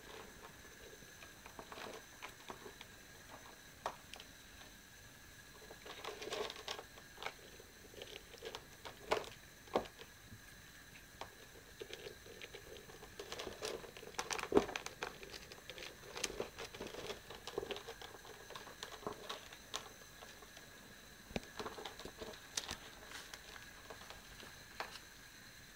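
Cats eating dry kibble from bowls: irregular crunching and small clicks of chewing and of kibble knocking in the bowls, coming in busier spells a few seconds apart.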